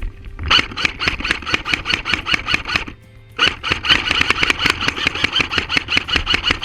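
Airsoft electric gun firing two long full-auto bursts, a rapid even clatter of shots, with a short pause about three seconds in.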